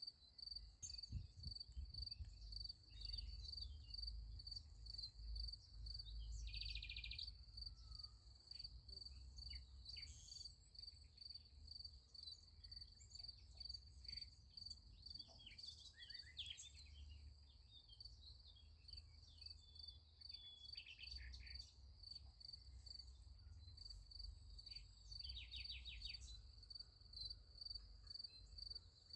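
Crickets chirping in a steady, even rhythm, with short bird calls now and then and a faint low rumble underneath.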